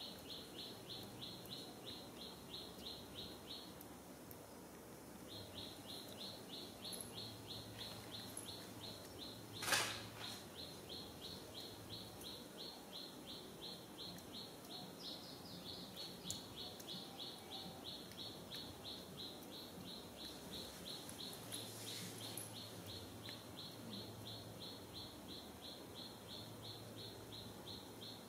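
Rapid, evenly repeated high chirping, about four chirps a second, which stops for a couple of seconds near the start and then runs on. There is a single sharp knock about ten seconds in.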